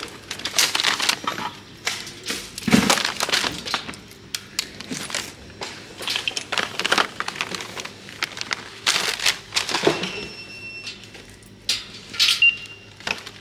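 Plastic-packaged items crinkling and rattling as they are lifted out of a wire shopping cart, with irregular clatters against the cart's metal mesh. A short electronic beep sounds near the end.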